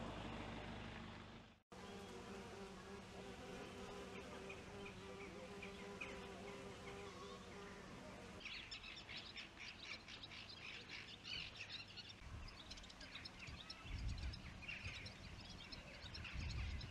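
Outdoor ambience across a few cuts: an insect buzzing steadily for several seconds, then small birds chirping repeatedly. Low wind rumble on the microphone comes in near the end.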